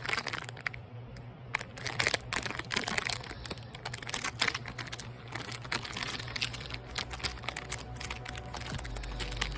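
Irregular quick clicks, taps and crinkly rustles of small objects being handled, over a low steady hum.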